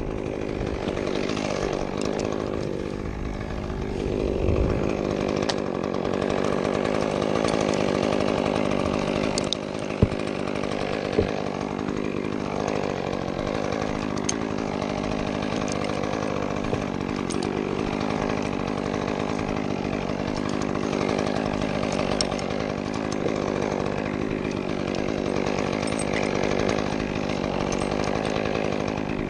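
Chainsaw running and cutting wood, its engine pitch rising and falling as it works. Two sharp knocks stand out about ten seconds in.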